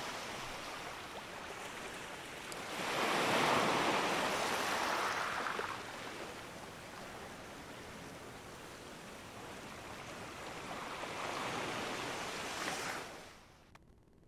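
Ocean waves washing, a steady rush of surf that swells about three seconds in and again near the end, then fades out.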